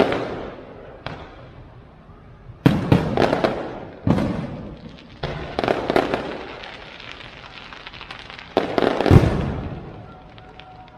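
Fireworks going off in a series of sudden bangs, each followed by crackling that dies away over a second or two. The loudest burst comes near the end.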